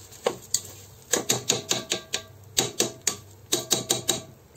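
Spatula scraping and clicking against the non-stick inner bowl of a multicooker as raw kalijira rice is stirred, in quick bursts of sharp clicks and scrapes with the grains rattling.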